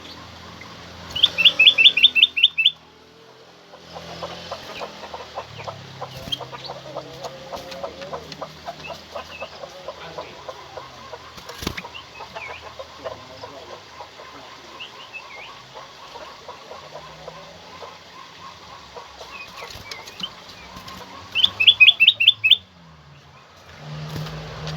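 Kutilang emas songbird giving a loud, rapid call of about seven quick notes, twice about twenty seconds apart, with fainter scattered chirps between.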